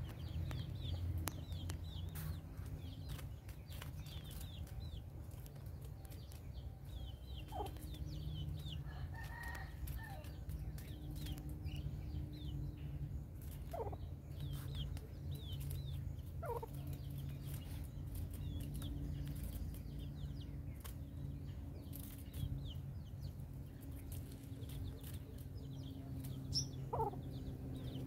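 Chickens calling: a chick peeping over and over in short high notes, with a few louder falling calls from a grown bird, four in all, over a steady low hum.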